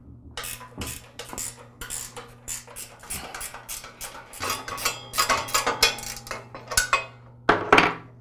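Irregular metal clinks and rattles of a hand tool on the bolts and steel lower belt guard of a Troy-Bilt Super Bronco tiller as the guard is unbolted and pulled off, with the loudest clanks near the end, over a steady low hum.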